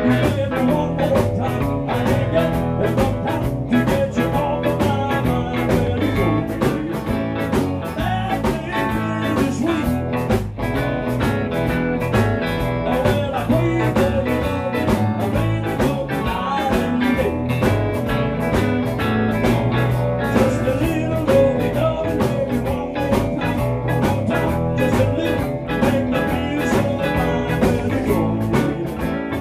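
Live band playing amplified electric guitars, bass and a drum kit, with a steady drum beat.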